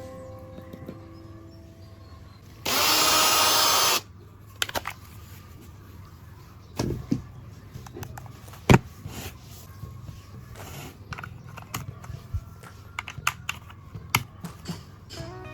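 A power tool runs in one loud burst of just over a second, about three seconds in. Scattered sharp clicks and knocks of handling follow it.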